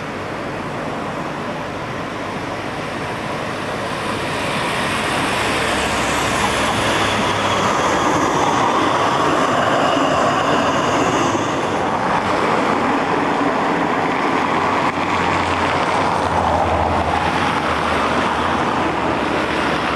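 Articulated Bern tram approaching and passing close by, growing louder about five seconds in, with a faint high whine from its wheels or motors as it goes by. Road traffic runs underneath.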